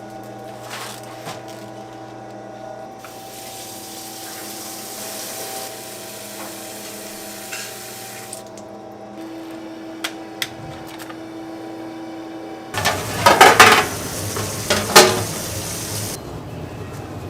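Kitchen sounds: a steady machine hum with water running for several seconds, a couple of sharp clicks, then a burst of loud clattering, like pots or metal utensils being handled, near the end.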